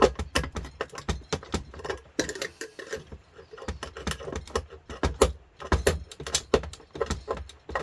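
Irregular metallic clicks and knocks, several a second, of a screwdriver prying and working at the metal parts of a George Foreman grill during a teardown.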